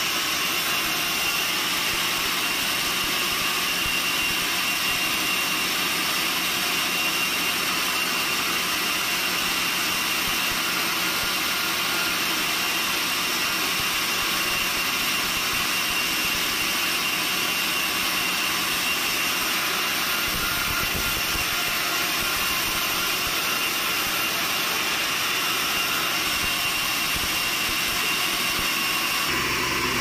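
Band sawmill running: steady machine noise with an even high-pitched whine.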